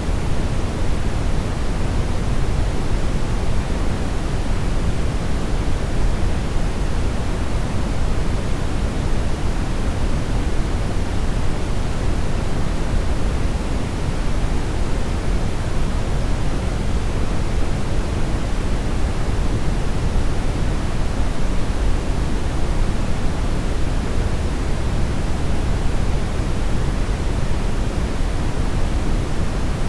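Steady synthetic brown noise: an even, unchanging rumbling hiss, strongest in the low end.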